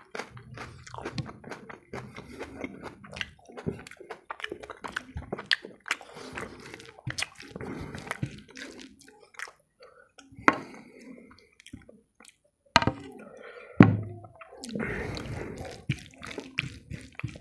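Fingers mashing and mixing boiled white rice with runny masoor dal on a plate, making wet squishing and sticky clicking sounds, with a few louder clicks about two-thirds of the way through.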